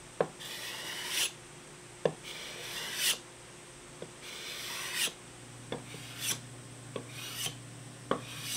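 Hand sanding block rubbed in strokes over a padauk wood tabletop, a rasping stroke about every second and a half. Each stroke comes with a light knock as the wooden block meets the surface.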